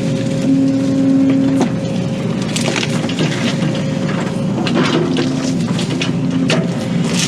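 Excavator diesel engine and hydraulics straining under a heavy load while it tries to swing a lifted tree, with a steady whine. Wood cracks and crackles throughout, with a few sharp snaps.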